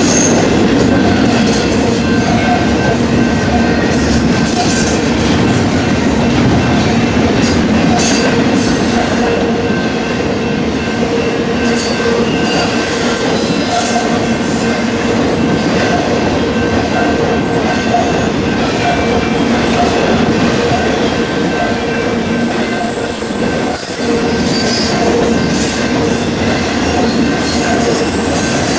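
Double-stack intermodal well cars rolling steadily past with continuous wheel-on-rail rumble and clatter. A high-pitched wheel squeal rises about twenty seconds in and fades a few seconds later.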